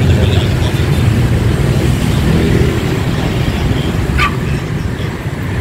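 Street traffic, a steady low rumble of passing vehicles. Near the end comes a short high chirp that falls in pitch.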